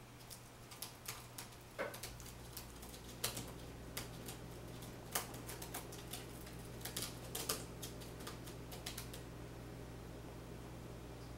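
Faint, irregular clicks and rustles as a dog digs through a basket of toys with its nose and paws, dying away about nine seconds in. A low steady hum underneath.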